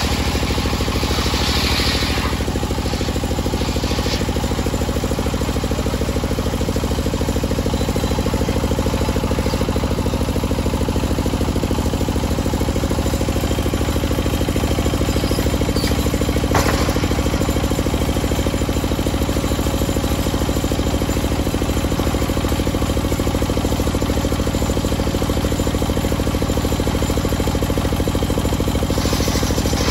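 Large table circular saw running steadily as it rips a teak log lengthwise, a continuous machine drone with the blade cutting through the wood. A single sharp knock about two-thirds of the way through.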